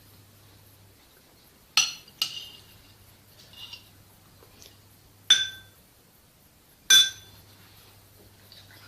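A spoon clinking sharply against a container as grated radish is spooned in: four ringing clinks spread over several seconds, with a few fainter taps between them.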